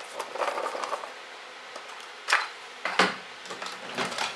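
Light clicking and knocking of small hand tools, a precision screwdriver bit set, being picked out and handled. There are two sharper clicks about two and three seconds in, and a few fainter ones after.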